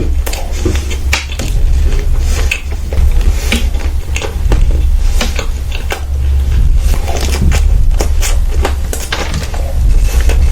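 Close-miked eating sounds: irregular clicks and smacks of chewing and of dishes or cutlery, over a steady low hum.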